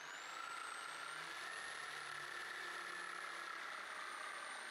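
Electric jigsaw starting up, its motor whine rising over the first second and a half, then running steadily as the blade cuts into a wooden board.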